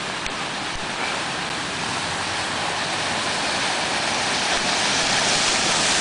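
Car ploughing through deep floodwater on a street, a steady rush of spray and wash that grows gradually louder as it comes closer, over the hiss of heavy rain.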